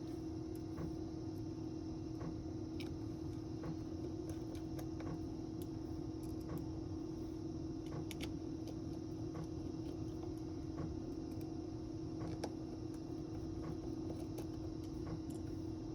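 Faint, scattered small clicks and taps of hand tools and parts being handled on a smartphone under repair, over a steady electrical hum.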